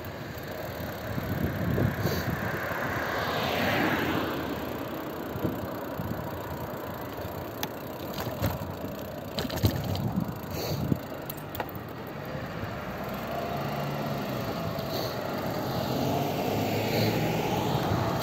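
Road traffic noise: vehicle engines running steadily, swelling twice as vehicles draw close and pass.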